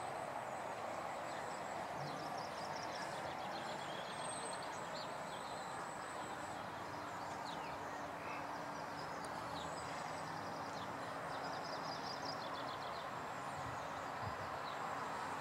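Steady outdoor ambience: a constant distant road-traffic hum, with small birds singing in short, rapidly repeated high trills a couple of times.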